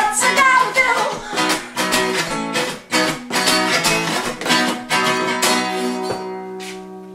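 Archtop acoustic guitar strummed hard in a steady rhythm, then a final chord struck about five and a half seconds in that rings on and slowly fades.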